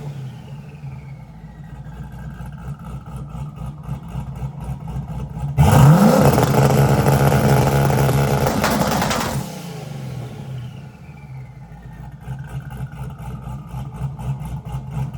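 Turbocharged 5.3-litre V8 with an 88 mm turbo and 5-inch exhaust idling, then about five seconds in it is floored onto the two-step launch limiter for about four seconds, loud and rowdy. It then drops back to idle while the turbo's whistle winds down in pitch.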